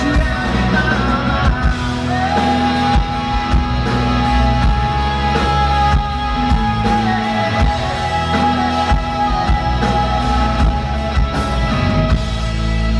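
Rock band playing live, with drums, bass and guitars. A long held note sustains from about two seconds in until near the end.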